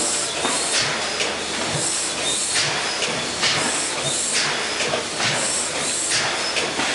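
Large vintage Snow gas engine turning over slowly, with repeated hissing puffs as the crank goes round.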